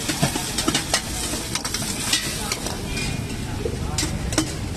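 A metal ladle stirring and scraping sauce in a steel wok, with sharp clinks scattered through, over the steady sizzle of oil deep-frying in the next wok.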